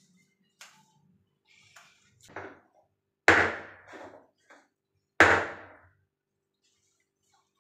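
Two heavy knocks about two seconds apart: a stone grinding muller (batta) striking a piece of coconut shell to loosen the flesh. Before them come a few faint clicks and scrapes of a knife prying at the shell.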